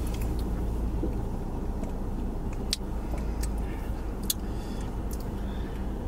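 Car engine idling, a steady low hum heard inside the cabin, with two sharp clicks near the middle.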